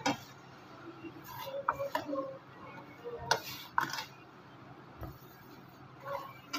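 A hand rubbing sabudana flour and ghee together in a bowl: soft scraping, with scattered clinks that ring briefly as the bangles on the wrist knock against the bowl's rim.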